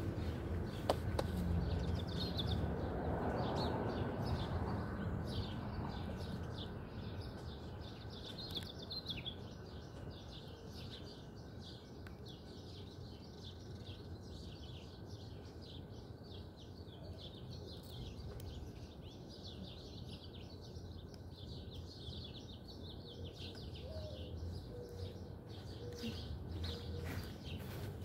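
Outdoor ambience: small birds chirping on and off, most often in the first ten seconds, over a steady low background noise that is loudest in the first few seconds and then eases.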